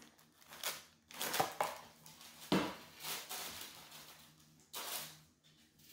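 Tissue paper and a cardboard gift box being handled: several short bursts of rustling and crinkling, with a knock about two and a half seconds in.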